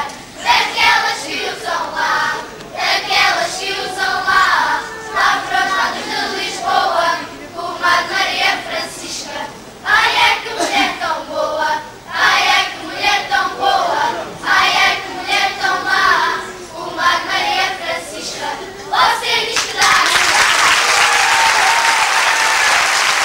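Children's choir singing cante alentejano, the traditional Alentejo part-song, in phrases with short breaks between them. About twenty seconds in the song ends and applause breaks out.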